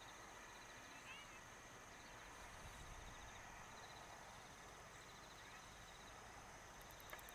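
Near silence: faint insects trilling steadily, with a few short bird chirps.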